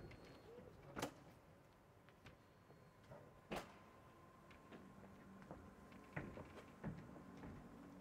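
Vega EVX's upward-opening door being unlatched and raised: two sharp clicks about two and a half seconds apart, with a few fainter knocks over a faint steady hum.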